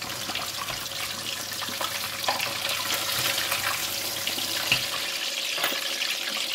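Hot oil sizzling and crackling around a whole black pomfret deep-frying in a stainless steel pan. A couple of light knocks come from the spatula and slotted spoon against the pan as the fish is turned.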